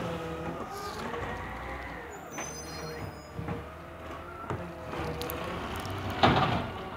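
Automated side-loader garbage truck running while its arm lifts and empties a trash can: a steady engine hum with a wavering whine, a few clunks, and a louder burst near the end.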